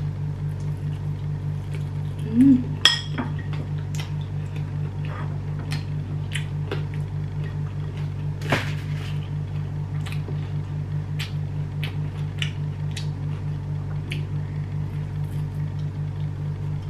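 Close-up eating sounds: chewing, with scattered sharp clicks and small clinks of a hand against a plate, over a steady low hum with a fast, even pulse.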